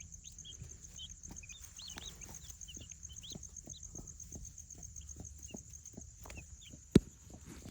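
Newly hatched chukar partridge chicks peeping, many short high chirps scattered throughout, with soft knocks and shuffling among them and one sharp click about seven seconds in.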